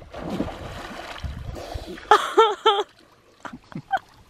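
Water splashing as a swimmer dives in head-first and swims a few strokes in a lake. About two seconds in, a person gives three short cries in quick succession.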